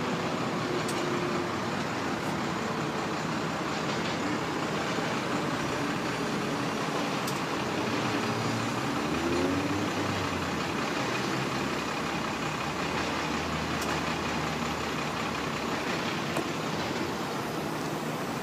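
Steady outdoor background noise with vehicle rumble; a low rumble rises about halfway through and fades out a few seconds later.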